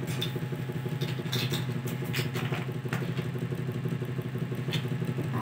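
A motor running steadily with a low, even hum, with a few short clicks over it.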